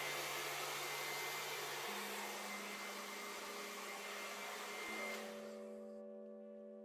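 Hand-held hair dryer running steadily with a faint whine as it blows across wet fluid acrylic paint, switched off about five seconds in.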